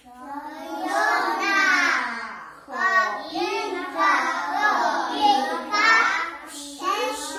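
A group of young children singing together, in phrases separated by brief breaths about 2.5 and 6.5 seconds in.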